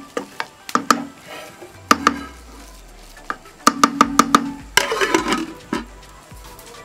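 Wooden spatula stirring roasted vermicelli in an aluminium pot, knocking sharply against the pot several times. About five seconds in, an aluminium lid is set onto the pot with a brief metallic clatter, closing it for dum cooking.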